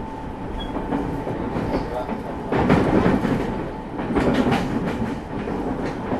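JR East 209-500 series electric train running, heard from inside the car with the air conditioning on: a steady running rumble, with louder wheel clatter over rail joints about two and a half seconds in and again about four seconds in.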